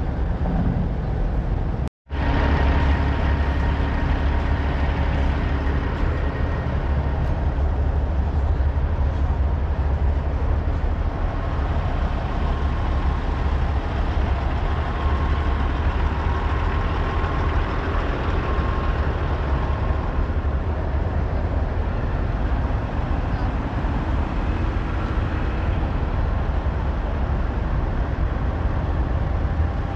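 Heavy diesel truck engines idling, a steady low rumble. The sound drops out for an instant about two seconds in.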